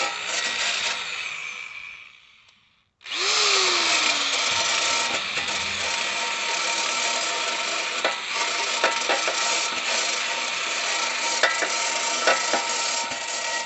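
A power-driven wire brush run at slow speed, scrubbing the burrs and sharp edges off the cut sheet-metal edge of a lawnmower deck. It winds down about two seconds in, stops briefly, then starts again abruptly and runs steadily with a few sharp clicks, winding down again at the very end.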